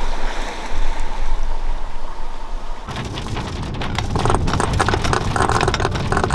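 Wind buffeting the microphone on a sailboat under way, with water rushing past the hull; about three seconds in the noise gets louder and gustier.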